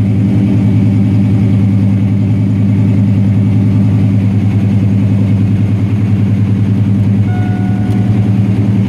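The 5.0 V8 of a 1992 Fox-body Mustang, fitted with GT40 parts and 24-pound injectors, idling steadily with a rapid even pulse, just after being started with a push-start ignition button. A short faint beep sounds near the end.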